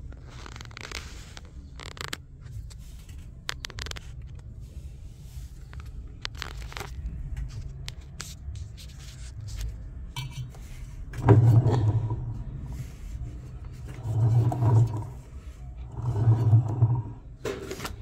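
Scraping, clicking and knocking of plastic and metal parts on a disassembled LG front-loading washing machine being handled. Three louder scraping spells come in the second half.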